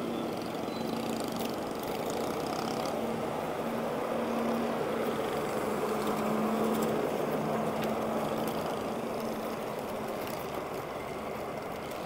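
A small engine, most likely a motorcycle's, running steadily at low road speed with a steady hum that swells a little in the middle, over road and traffic noise.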